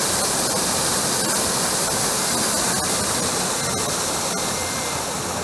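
Steady rushing hiss of falling or running water, with a few faint ticks.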